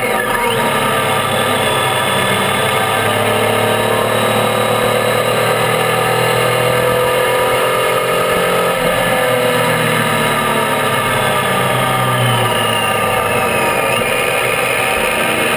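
Triumph Tiger 800's three-cylinder engine running under way, its pitch rising slowly for about eight seconds, then dropping suddenly before running on steadily, over a constant rush of wind and road noise.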